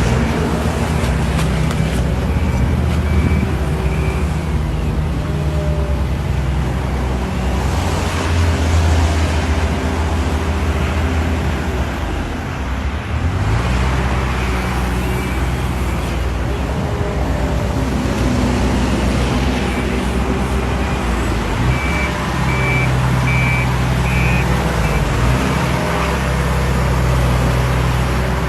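Heavy construction machinery engines running, their pitch rising and falling as the machines work, with a reversing alarm beeping in two short runs.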